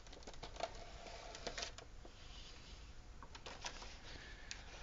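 Clear plastic blister packaging and cardboard box being handled as a figure's tray is slid out of the box: irregular plastic clicks and crinkles, with a short rustle in the middle.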